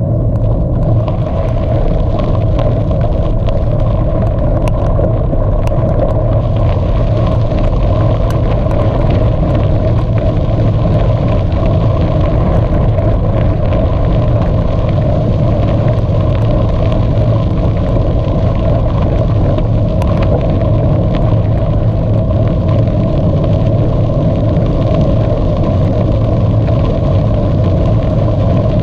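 Steady, loud rumble of riding noise: wind buffeting the camera microphone, mixed with rolling noise from the bike. A few faint clicks come through, around five seconds in and again near twenty seconds.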